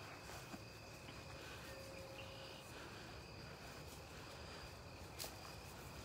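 Faint, steady high-pitched trill of crickets in autumn prairie grass, with a single sharp click about five seconds in.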